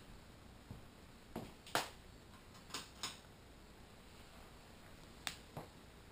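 Faint steady hiss of a quiet room, broken by six short soft clicks in three close pairs, the loudest about two seconds in.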